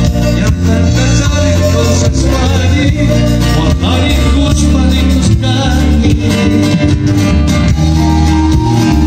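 Live band playing Latin-style music through a stage PA, with guitars, keyboard and drums, and a man singing into a microphone.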